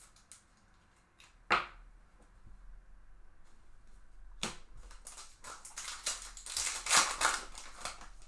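A baseball card pack's wrapper being torn open and crinkled by hand: a dense crackle that starts about four and a half seconds in and is loudest near the end. A single sharp tap comes about a second and a half in.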